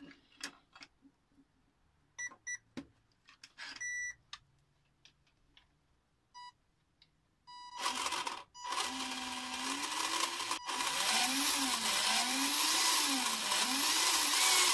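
A few short electronic beeps as a brushed speed controller arms, then a brushed electric motor spinning up through a knockoff HSP SCX10-style transmission, starting about eight seconds in and cutting out briefly twice. The gear whine rises and falls in pitch over and over with the throttle, harsh and noisy, "awful", the noise coming from the motor and transmission.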